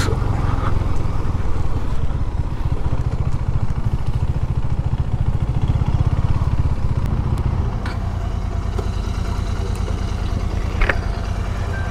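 Motorcycle engine running at low revs with a steady throb, settling into a steadier, slightly quieter idle about eight seconds in.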